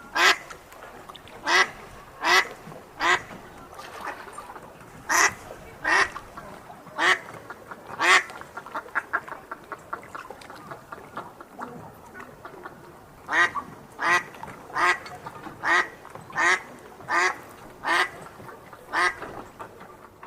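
A duck quacking repeatedly: runs of loud quacks about one every three-quarters of a second, with a stretch of softer, rapid quacking in the middle.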